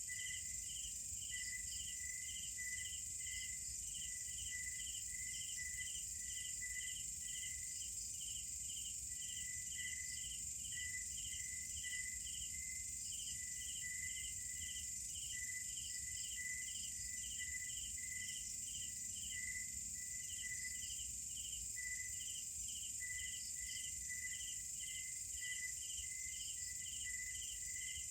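Night chorus of crickets and other insects: a steady high-pitched drone under rhythmic chirping, about three chirps a second.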